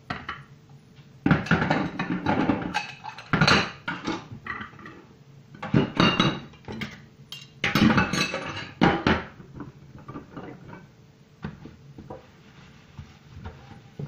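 Dishes, pots and cutlery clattering in a stainless steel sink while being washed by hand, in several bursts of knocking and clinking over the first nine seconds or so, then lighter, sparser clinks.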